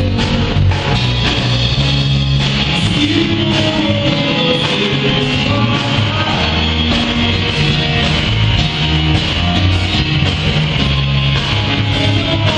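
Live band playing: a strummed acoustic guitar, an electric bass and a drum kit, with a strong, steady bass line.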